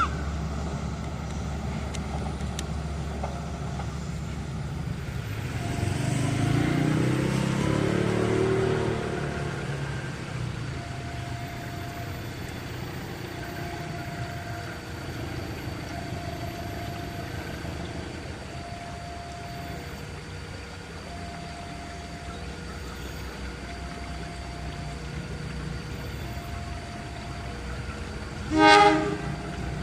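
Railway scene: a diesel engine rumbles steadily, swelling louder with gliding tones for a few seconds early on, while an alternating two-note electronic warning signal repeats about once a second from around a third of the way in. Near the end a single short, loud horn blast sounds.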